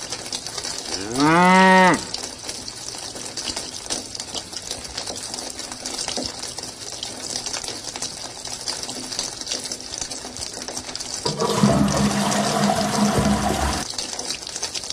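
A single drawn-out cow moo, rising then falling in pitch, followed by a steady hiss of running water from a mini water pump. Near the end a louder, deeper rushing noise lasts about two and a half seconds.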